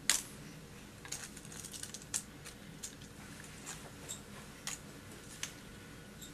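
Scattered light clicks and taps of rechargeable AA cells and voltage-tester probes being handled, one sharper click at the start and a dozen or so faint ones after it.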